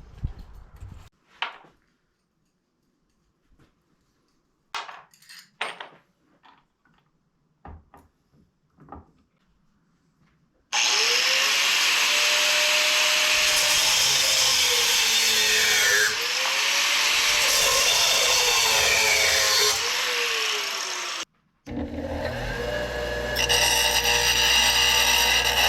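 A few scattered knocks and clicks, then a power tool working a steel bracket for about ten seconds, its motor pitch dipping and rising as it bears into the metal. After a short break, a tool runs again with a steadier tone.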